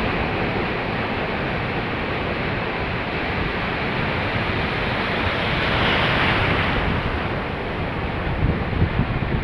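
Sea waves breaking and washing up the shore, with wind rumbling on the microphone; a wave crashes louder about six seconds in.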